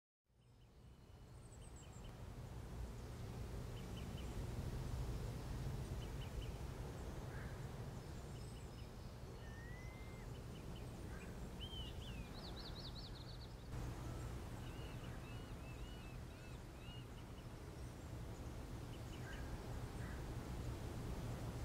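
Outdoor ambience of small birds calling: scattered short chirps, a rising whistle and a fast trill, over a steady low rumble and hiss. The ambience fades in over the first couple of seconds.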